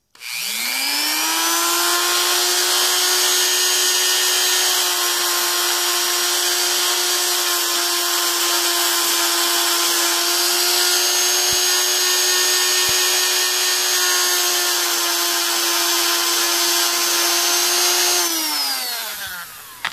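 Dremel rotary tool with a fine wire brush spinning up, then running at a steady whine with a loud scratchy hiss as the brush scrubs a score mark off a small DC motor's brass commutator. It winds down, falling in pitch, near the end.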